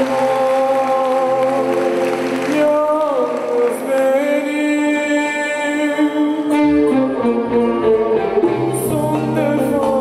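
Singing with instrumental backing music in long, held notes, from a stage musical.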